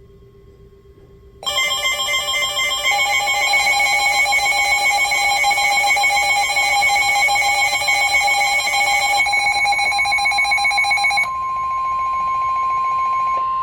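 Emergency Alert System attention tone: a loud, steady electronic alarm of several tones sounding together for about ten seconds, changing near the end to a single steady tone.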